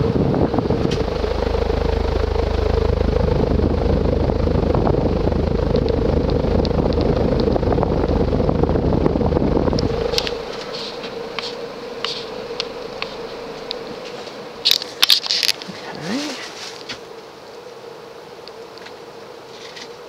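Kenroy 36-inch spinner ceiling fan running very fast on its high speed: a steady motor hum under the rush of air from the blades. The air buffets the microphone with a deep rumble until about halfway through, when the rumble cuts off and the sound turns quieter while the hum carries on. A few light clicks come near the end.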